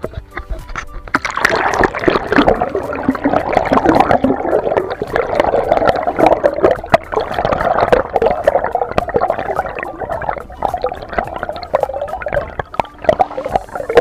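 Sea water gurgling and bubbling around an action camera held underwater, starting sharply about a second in and staying loud and muffled, with many small clicks. Background music plays underneath.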